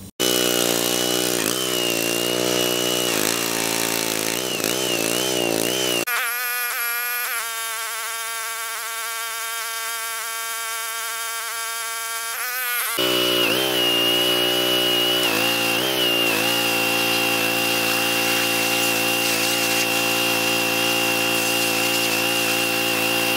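Pressure washer running steadily while spraying, its motor and pump making a steady pitched drone with a thin high whine. The note shifts about six seconds in and returns to the first sound about seven seconds later.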